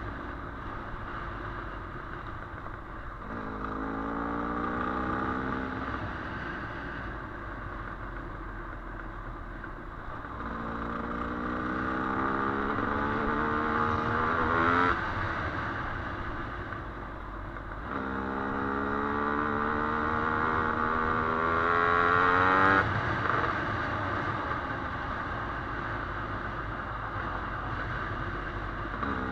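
Dirt bike engine revving up hard three times under throttle, its pitch climbing and then dropping off sharply each time, with lower running in between and a steady rush of wind and riding noise throughout.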